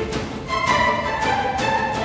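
Background music led by bowed strings, with a new held note coming in about half a second in.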